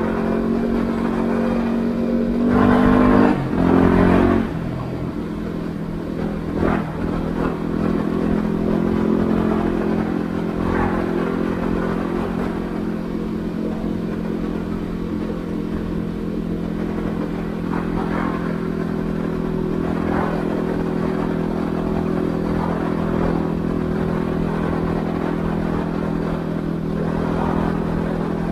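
Yamaha WR250R's 250 cc single-cylinder four-stroke engine running steadily. It revs up briefly about three seconds in, and there are a few short clunks along the way.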